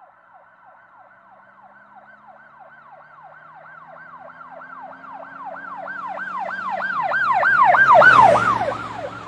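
Police car siren sound effect in a fast yelp of repeated falling sweeps, about three a second, growing steadily louder to a peak about eight seconds in and then fading. A low engine rumble and a rush of noise join it at the loudest point.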